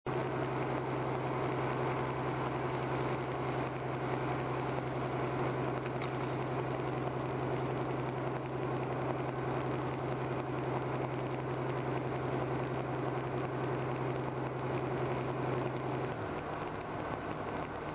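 Running noise inside an Irish Rail 29000 class diesel multiple unit on the move: a steady low drone from its underfloor diesel engine, which changes pitch about two seconds before the end.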